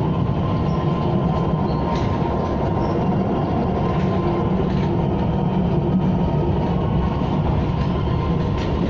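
KTM ETS electric train running at speed, heard as a steady rumble of wheels and carriage with a faint steady whine and a few light clicks.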